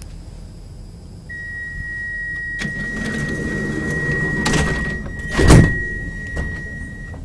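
Stockholm Metro C20 train's doors closing: a steady high warning tone sounds for about six seconds while the sliding doors run shut, ending in a loud thud about five and a half seconds in.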